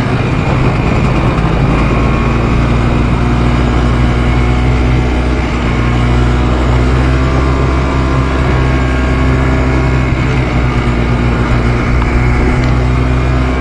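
ATV engine running steadily, heard from on board the moving quad along a dirt trail.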